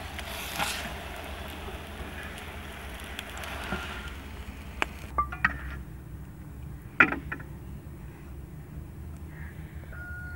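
Ghee-coated paratha sizzling on a hot tawa griddle; the sizzle stops about five seconds in. After that, a few light clicks and one sharp knock about seven seconds in.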